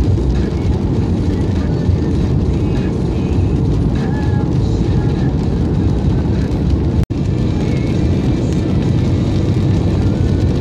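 Steady rumble of road and wind noise inside a moving car, cut by a brief dropout about seven seconds in.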